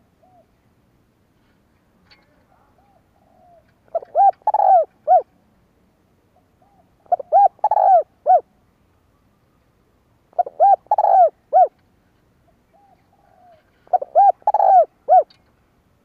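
Spotted dove cooing its song, four phrases of about four arched notes each, repeated roughly every three and a half seconds. Each phrase is preceded by a faint soft note. This is the song Vietnamese dove keepers use to provoke and lure wild doves.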